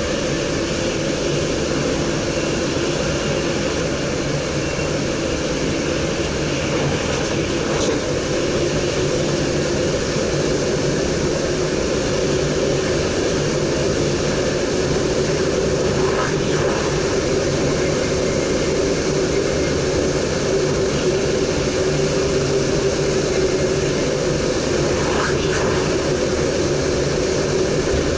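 Steady running noise of an NS DDZ double-deck electric train at speed, heard from the driver's cab: a constant hum with wheel and rail noise, holding an even level throughout.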